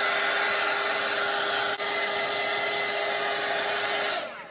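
Hair dryer blowing steadily on a wet watercolor painting to dry a paint layer, with a steady motor whine under the rush of air. It switches off about four seconds in.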